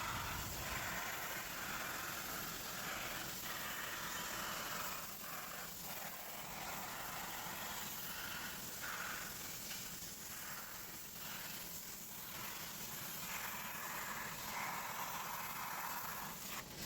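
Hypertherm Powermax65 plasma cutter on a CNC table cutting half-inch steel plate, giving a steady hiss.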